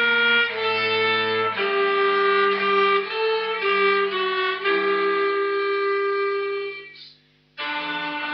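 Soundtrack music: a violin playing a slow melody of long held notes over lower sustained notes, fading out about seven seconds in. After a brief gap, another tune begins.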